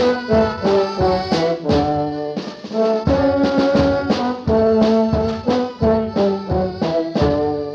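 Brass band playing an instrumental tune in short, quickly changing notes, from an old cassette recording.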